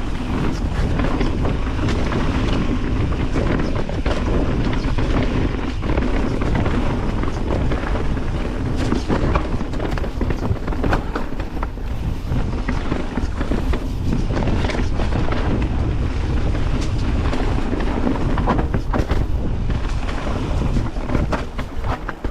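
Mountain bike riding down a rough dirt trail: wind rumbling on the microphone, tyres rolling over dirt, and the bike rattling with frequent short knocks over roots and rocks.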